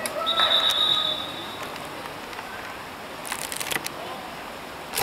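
Referee's whistle blown once, a steady high-pitched tone lasting about a second near the start, over open-air match ambience with distant voices. A few sharp clicks follow about three seconds in.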